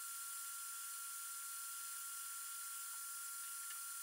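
Steady high-pitched whine over an even hiss from the Prusa MK4 3D printer while its firmware flashes, sped up in a timelapse.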